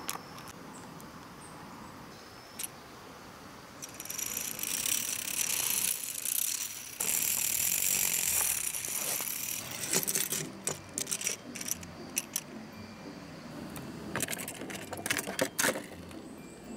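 Handling noise of a small die-cast toy tow truck being picked up and set into a plastic carry case: a few seconds of hissing rustle, then a run of sharp clicks and rattles from about ten seconds in.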